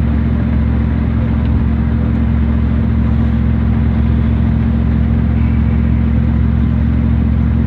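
Old pickup truck running, heard from inside its cab: a loud, steady engine drone with rumble that holds level throughout.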